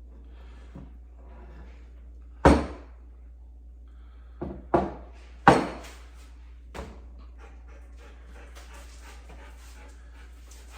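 A dog barking five times in short, sharp barks, the loudest ones close together in the middle.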